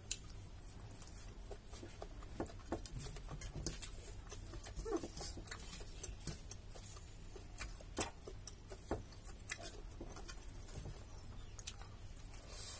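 Eating by hand: scattered sharp clicks of chewing and lip smacks, and fingers working rice on a steel plate, over a low steady hum.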